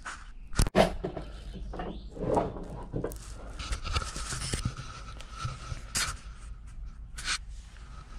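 Handling noises: scattered clicks, knocks and rustling as the camera is carried about and a cordless drill is picked up, with a sharp double knock about half a second in. A faint steady high tone sounds through the middle part.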